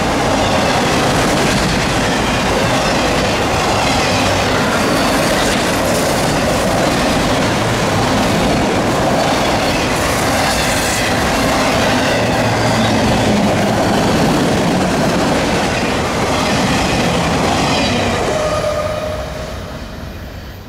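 Loaded freight autorack cars rolling past at speed: steel wheels clattering over the rail with some high wheel squeal. Near the end the last car goes by and the sound quickly fades away.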